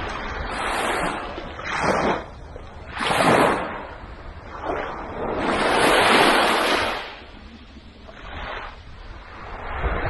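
Gentle waves breaking and washing up over a sandy beach, in several surges of hiss a second or two apart. The longest and loudest wash comes about six seconds in.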